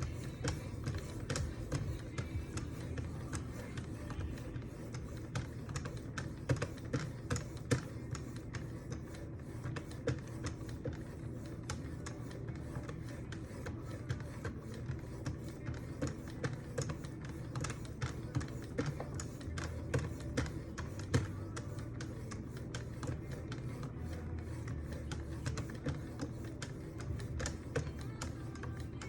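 Sharpening stones of a Wicked Edge guided sharpener stroking along a knife blade, a quick, irregular run of scraping strokes and light clicks, over faint background music.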